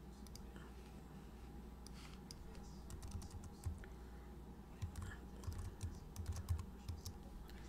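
Faint computer keyboard typing: scattered keystrokes that come thicker from about two seconds in.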